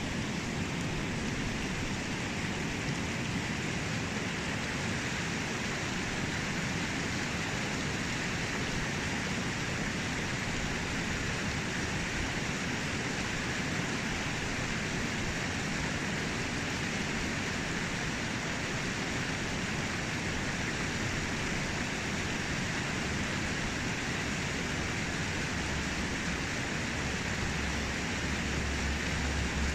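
Shallow mountain river rushing over stones in a riffle: a steady, even rush of water. A low rumble comes in near the end.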